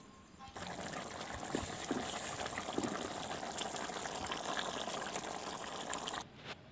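Chicken curry, thinned with water to soften the meat, boiling in a metal karahi: a steady bubbling hiss full of small crackles. It starts abruptly about half a second in and cuts off shortly before the end.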